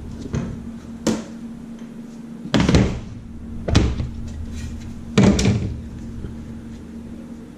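A tool prying at the soldered metal shield cover on a small sensor circuit board, giving about five sharp clicks and knocks, the loudest about two and a half and five seconds in. A faint steady hum runs underneath.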